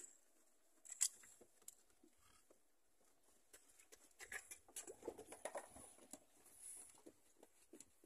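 Faint clicks and light knocks of a wooden shed door's latch being worked by hand. The sharpest click comes about a second in, followed later by a spell of scattered rattling and rustling.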